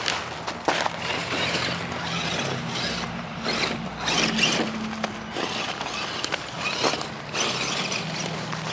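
Electric motor and geartrain of an Axial SCX10 Deadbolt RC crawler whining as the throttle is worked, its pitch rising and falling, with the tires crunching and rustling over the ground.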